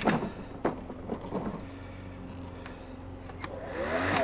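Light clicks and knocks of hands handling the plastic handle and control console of an electric lawn mower, a few in the first second and a half, over a low steady hum, with a brief pitched sound rising and then falling near the end.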